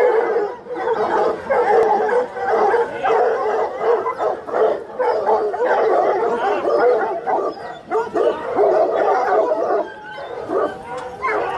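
A large pack of hunting hounds yelping and baying together: a continuous chorus of many overlapping excited voices, easing slightly about ten seconds in. The hounds are being held back from their food troughs at feeding time.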